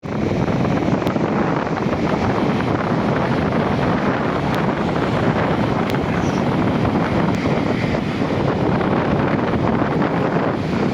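Strong wind buffeting the microphone over the steady rumble of heavy Atlantic surf breaking on the beach.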